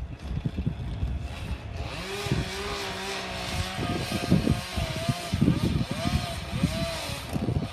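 Chainsaw running, its pitch holding steady and then rising and falling in short swells as it is revved, over irregular low rumbles.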